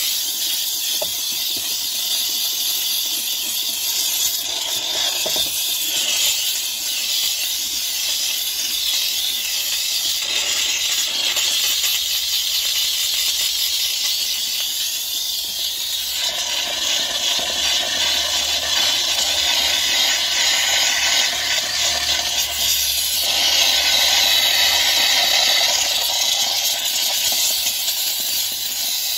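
Handheld steam cleaner jetting steam onto an engine bay: a steady hiss. Past the middle it turns fuller and louder for several seconds, with a faint low hum beneath it.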